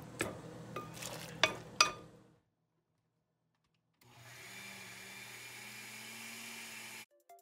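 A few sharp knocks and clatter of kitchenware over a low hum, then an Oster countertop blender running steadily for about three seconds, puréeing cooked beans with a little of their broth, before it cuts off abruptly.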